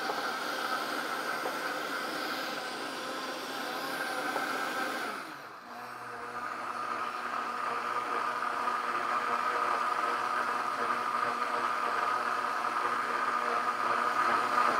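Vitamix A3500 blender motor running its self-cleaning cycle, the blade whirring through soapy water and foam. About five seconds in it drops off briefly, then ramps back up to a steady, higher-pitched whine.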